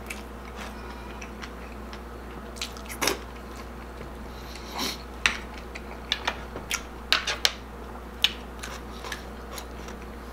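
A metal spoon clinking against a glass bowl of mung bean stew several times, the sharp clinks bunched in the second half, with chewing and mouth sounds between.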